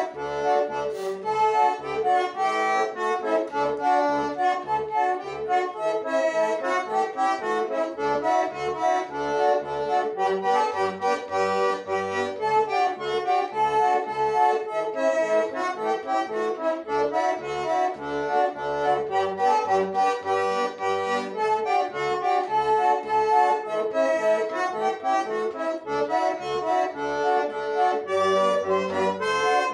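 Solo bandoneon playing a foxtrot: a melody with chords over short bass notes on the beat, about two a second, which drop out for a few bars here and there.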